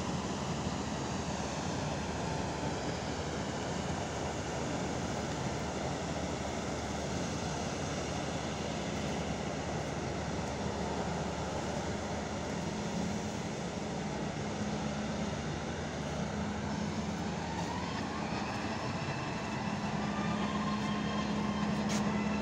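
Steady drone of heavy machinery running, with a low hum that grows stronger over the last few seconds.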